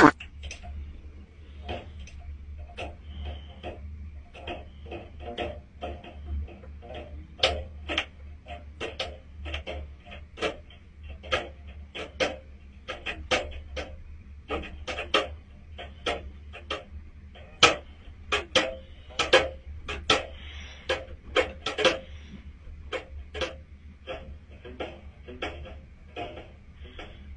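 An irregular run of light clicks or ticks, about two a second, over a steady low hum.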